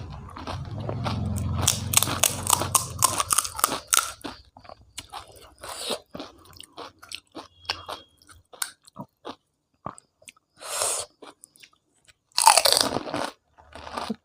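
A person eating panipuri and momos close to the microphone, mukbang style: dense crunching and chewing for the first four seconds, then sparser chewing clicks. Two short, louder noisy bursts come near the end.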